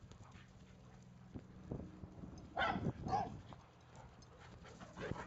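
A dog barking twice, about half a second apart, a little past the middle.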